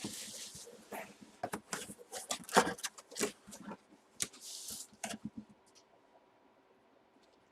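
Packaging being handled and unwrapped: bursts of crinkling, rustling plastic and paper with scattered clicks and knocks, dying away to near quiet about five seconds in.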